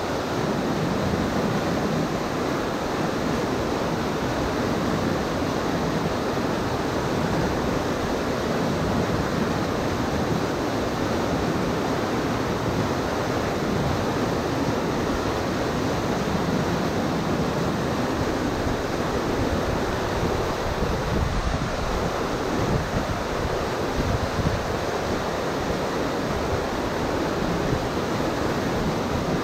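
Whitewater rapids rushing steadily over a rocky river drop, a constant roar of churning water.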